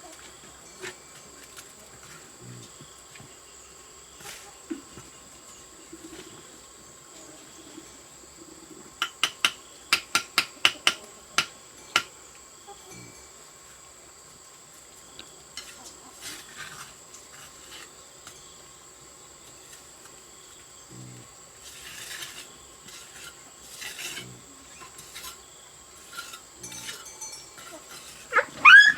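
Steady high insect drone. About a third of the way in comes a quick run of around a dozen sharp knocks, with scattered single knocks elsewhere. A pitched animal call starts right at the end.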